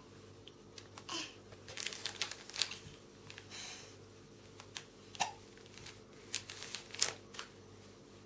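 Thin plastic packaging crinkling in short, irregular bursts as a crawling baby's hand presses and drags it on a rug, with a brief baby vocal sound about a second in.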